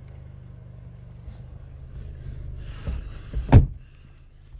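A car door slams shut about three and a half seconds in, just after a short rustle of someone climbing into the back seat. A steady low hum runs underneath and sounds duller once the door is shut.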